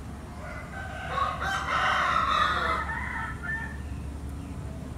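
A rooster crowing once, a single call of about two seconds that peaks midway, over a steady low rumble.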